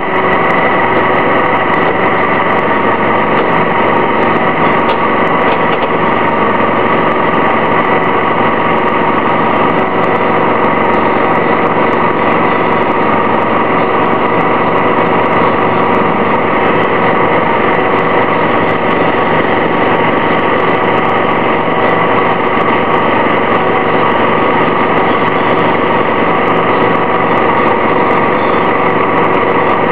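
The Detroit Diesel Series 50G four-cylinder natural-gas engine of a 2004 Orion VII transit bus running with a steady, unchanging note.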